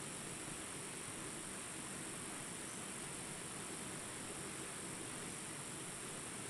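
Steady outdoor background hiss with no distinct sounds standing out.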